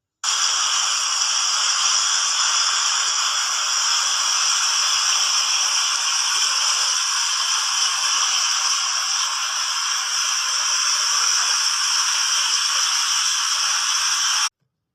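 Water fountain jets splashing into the basin, a steady dense hiss that cuts out abruptly just before the end.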